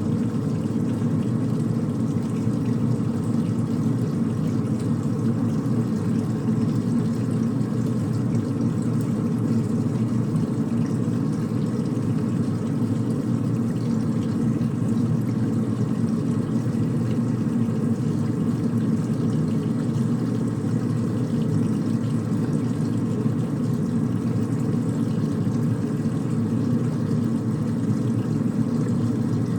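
Washing machine running its spin cycle: a steady, even drum hum with a faint whir of water.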